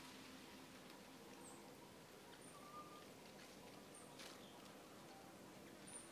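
Near silence: faint background hiss with a few soft, very high, short chirps scattered through it.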